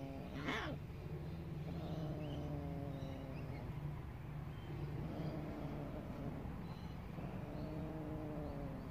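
Domestic cat yowling during mating: several long, low, drawn-out caterwauls that slowly fall in pitch, with a brief sharp noise about half a second in.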